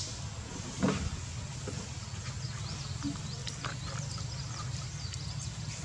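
Outdoor background: a steady low rumble, with one short sharp sound about a second in and faint high chirps and ticks.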